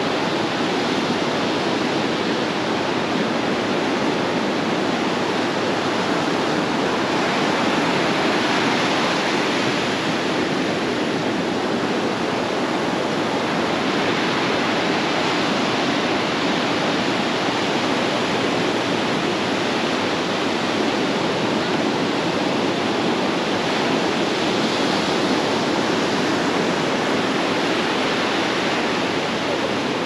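Steady rush of water, an even noise with only slight swells and no breaks.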